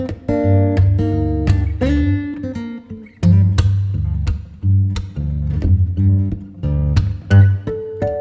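Background music: a run of plucked string notes over a steady bass line.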